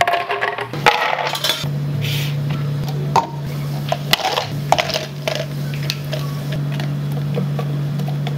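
Light clinks and knocks of metal and glass kitchenware being handled, a few of them ringing briefly, over a steady low machine hum that comes in about a second and a half in.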